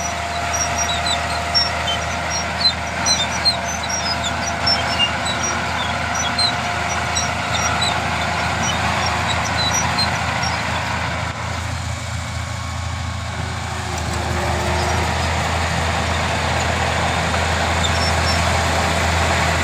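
Bulldozer's diesel engine running steadily under load, with many short high chirps over it in the first several seconds. The engine grows louder about two-thirds of the way in.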